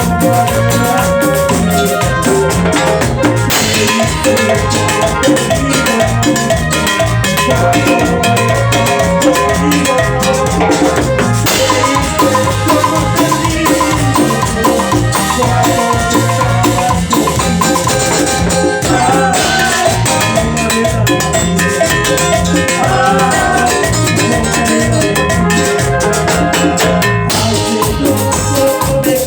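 Instrumental passage of Latin dance music in the chichera style, with a drum kit and percussion keeping a steady beat under sustained melodic instrument lines.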